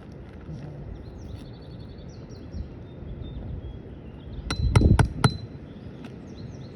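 Four sharp metallic clinks within about a second, each with a brief ring, from a hand tool striking metal, most likely while nails are being worked out of the roof.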